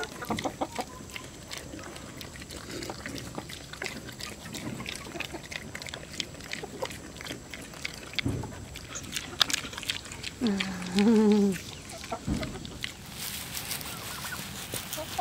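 Pigs chomping grain from a feed tub with many small crunching clicks, while chickens cluck around them. One loud, drawn-out animal call comes about two-thirds of the way in. Near the end, grain is poured out of a scoop onto grass with a soft rushing sound.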